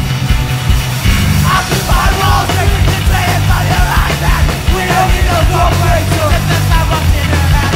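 Hardcore punk band playing loud, distorted guitar-driven music, with shouted vocals coming in about a second and a half in.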